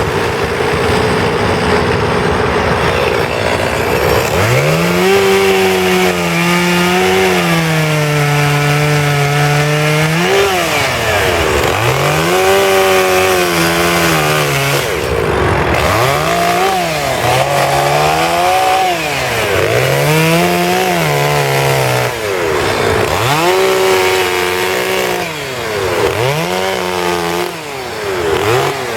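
Chainsaw carving into wood. The engine's pitch swings up and down again and again, roughly every two seconds, as the throttle is worked through short cuts, after a steadier first few seconds.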